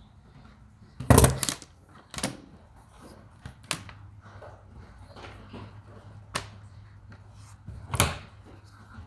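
Several sharp clicks and knocks of small tools and parts being handled, the loudest a quick double knock about a second in and another near the end, over a low steady hum.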